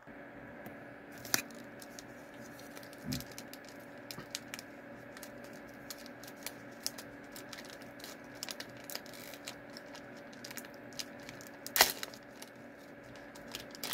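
Someone eating a peanut butter chocolate bar: scattered small clicks and crackles of biting and chewing close to the microphone, with a couple of sharper clicks, over a steady faint hum.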